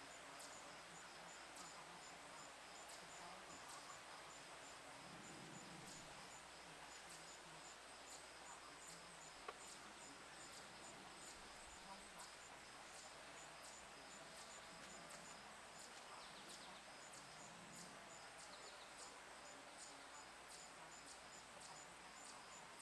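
Faint outdoor ambience: an insect chirps in a high, steady, evenly repeating pulse, with scattered faint high ticks.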